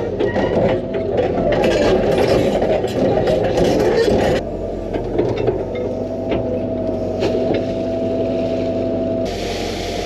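A 13-ton excavator's diesel engine running under load while its hydraulics work the bucket, rougher and noisier in the first half, then with a steady hydraulic whine for a few seconds in the second half.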